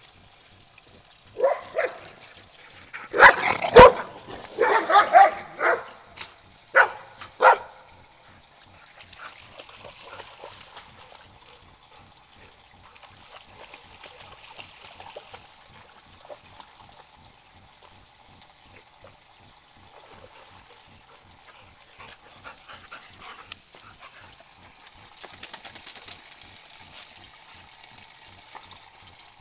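A dog barking, a run of about eight loud barks in the first quarter, then faint trickling and splashing of water as a dog wades in a shallow pond.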